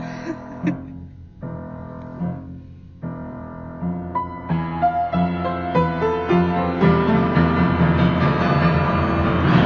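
Piano playing: separate notes and chords at first, then busier, fuller playing that grows louder from about three seconds in.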